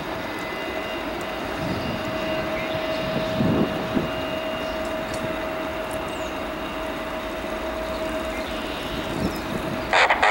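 Jet engines of a departing Boeing 737 making a steady roar, with a steady whine running through it.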